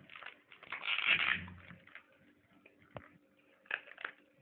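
Plastic bag rustling and crinkling as it is handled and pressed, with a sharp click about three seconds in and a couple of softer ticks near the end.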